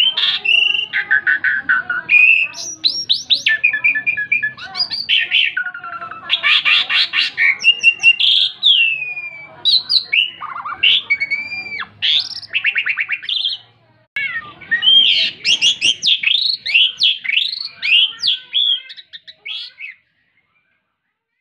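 Asian pied starling (jalak suren) singing in full voice: a long, varied string of whistles, gliding notes and fast chattering rattles. It pauses briefly about two-thirds through and stops shortly before the end.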